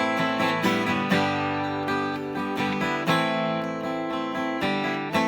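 Acoustic guitar being strummed in an instrumental break of a song, chords ringing with a strum attack about every half second to a second.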